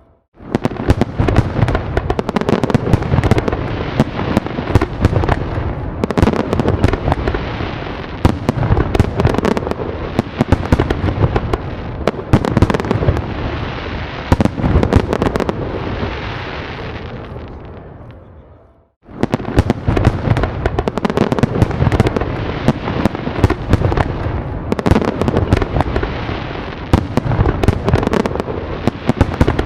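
Fireworks going off in a dense barrage of bangs and crackles over a low rumble. It fades away about two-thirds through, drops out briefly, then starts again suddenly at full strength.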